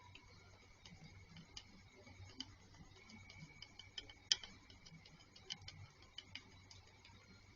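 Faint, irregular light clicks and ticks, the sharpest a little past the middle, over a steady faint high-pitched whine and low hum.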